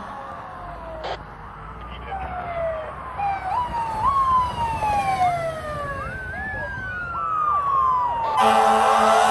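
Fire apparatus sirens. A siren repeatedly sweeps down in pitch, jumping quickly back up each time. About eight seconds in, a loud steady horn blast starts and a second siren slowly climbs in pitch.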